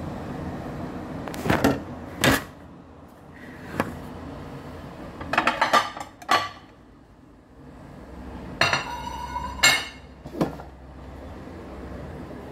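Kitchenware clattering: a metal grater and dishes knocked and set down in a string of sharp knocks and clinks, with a longer ringing metal scrape about nine seconds in.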